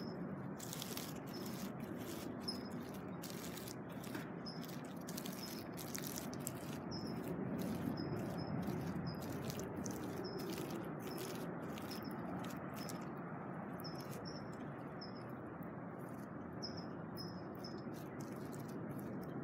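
Crackly scratching and rustling as a cat kneads a plush fleece pillow on a bed of pine straw, with short, high bird chirps repeating about once a second.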